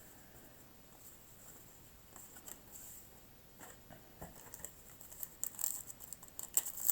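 Rustling, crinkling and light clicks of baseball cards and their pack being handled, sparse at first and turning busy and louder over the last couple of seconds.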